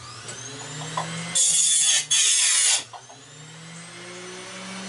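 Small electric grinder running, its motor whine climbing in pitch; a piece of scrap metal is pressed to the wheel about a second and a half in, giving a loud hissing grind in two touches, after which the motor whine climbs back up. It is a grind test to tell whether the piece is aluminum, and it shows that it is.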